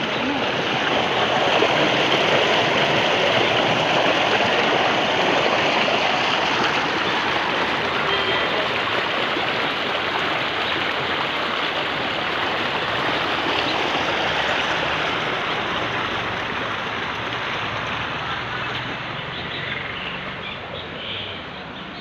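Spring water rushing steadily through a narrow stone channel, fading over the last few seconds.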